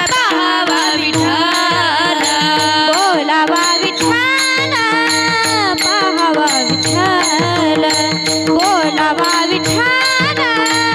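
Varkari kirtan music: a melodic line with sliding, wavering ornaments over a steady drone, with regular drum strokes and small cymbals keeping the beat.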